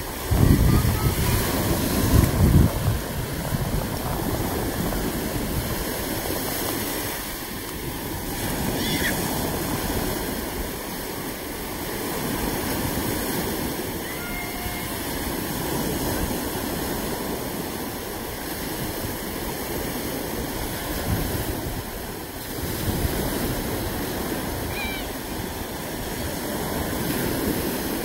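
Small waves washing up over wet sand and sliding back, a steady hiss of surf that swells and eases every few seconds. A low buffeting rumble of wind on the microphone is loudest in the first few seconds.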